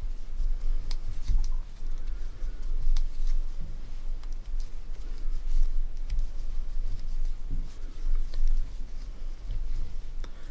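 Wooden knitting needles clicking softly and yarn rubbing as stitches are worked by hand, scattered small clicks over a steady low rumble.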